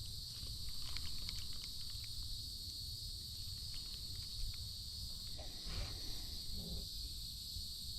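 Steady high-pitched insect chorus, over a low steady rumble.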